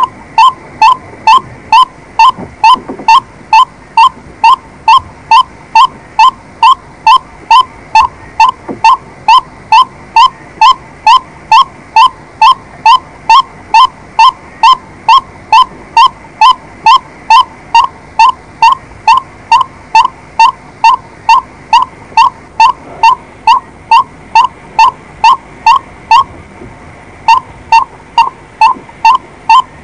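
White-breasted waterhen calling: a monotonous series of short, pitched 'kook' notes repeated evenly, nearly two a second, with a break of about a second near the end.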